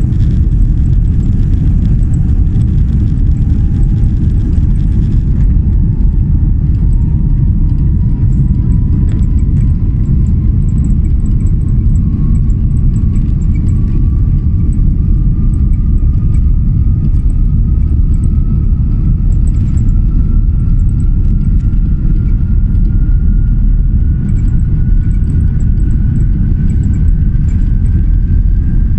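Airliner's takeoff roll heard from inside the cabin: a loud, steady low rumble of the jet engines and the wheels on the runway, with a faint thin whine that climbs slowly and steadily in pitch as the plane gathers speed.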